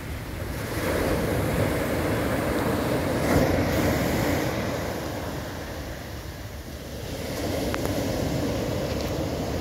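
Small sea waves breaking and washing up a dark fine-gravel beach, the surf swelling about a second in, easing off in the middle and building again near the end, over a steady low rumble.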